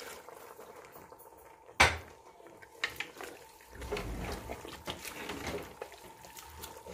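A hand mixing pieces of beef tripe and head meat with chopped herbs, onion and spices in a metal pot: soft wet handling noise with small clicks, and one sharp knock about two seconds in.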